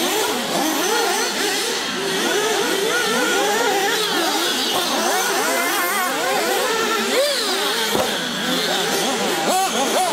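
Several 1/8-scale nitro RC cars racing together, their small two-stroke glow-fuel engines revving up and down over one another without a break.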